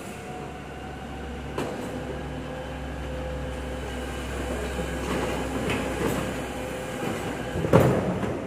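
Volvo FE 300 refuse truck's engine running while its rear hydraulic bin lifter whines steadily, raising a wheelie bin to tip it, with metal clanks along the way and a loud bang just before the end.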